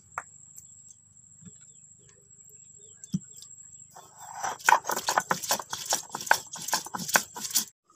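Mustard seeds being crushed on a flat stone slab (sil) with a stone pestle (nora): a few faint clicks at first, then about halfway in a fast run of gritty grinding and scraping strokes, about four or five a second.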